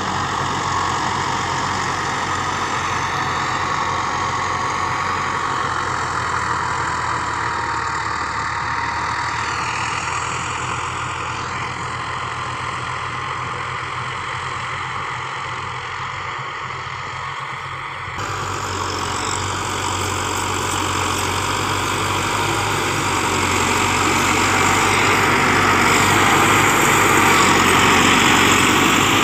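Massey Ferguson 385 tractor's diesel engine running steadily under load while pulling a rotavator through the soil, growing louder and brighter over the last third.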